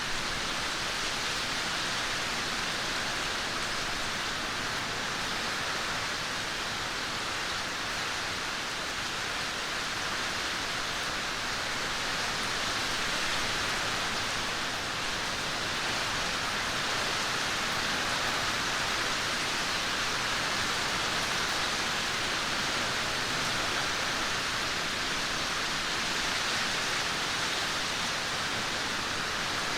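Steady, even rainfall hiss without distinct drops or thunder.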